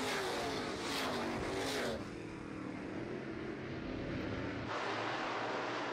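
A pack of Midwest Modified dirt-track race cars passes close by at speed. Their engine pitch drops as each car goes by, then the sound fades as they run away down the straight. About five seconds in, it switches suddenly to more distant engine noise from the pack further around the track.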